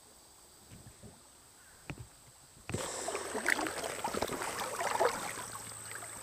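Quiet for the first two and a half seconds, then creek water suddenly splashing and gurgling close to the microphone, with many small crackles, as a hand reaches into the shallow current around wader-clad legs.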